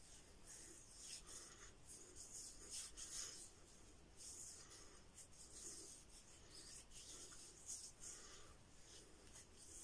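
Hands rubbing pre-shave cream into a four-day stubble: faint, repeated hissy rubbing strokes of palms and fingers on the bristly, damp skin.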